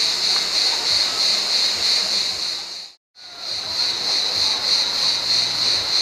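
Cicadas buzzing in a high, evenly pulsing chorus over sea waves washing on a rocky shore. The sound fades out to silence for a moment about halfway through and then fades back in.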